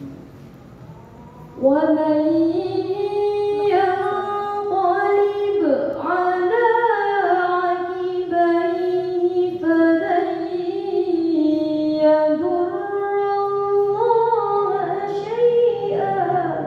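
A girl reciting the Quran in melodic tilawah style into a handheld microphone, starting about a second and a half in. The recitation is one long, drawn-out phrase whose pitch is held and ornamented in slow glides.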